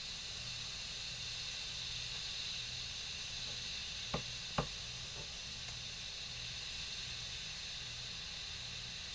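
Instant Pot pressure cooker releasing its steam through the vent valve: a steady, even hiss that means the pot is still under some pressure. Two short sharp clicks come about four seconds in, about half a second apart.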